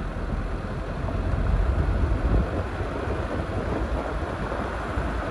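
Steady low rumble of a car driving along an asphalt road: tyre and wind noise.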